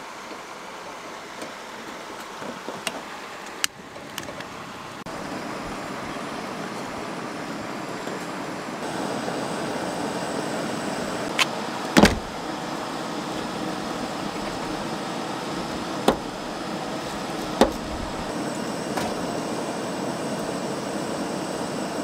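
A steady rushing hiss that grows louder twice, with scattered sharp clicks and clinks and one louder knock about twelve seconds in, while pine-needle tea is readied on a propane camp stove and in a stainless steel pot.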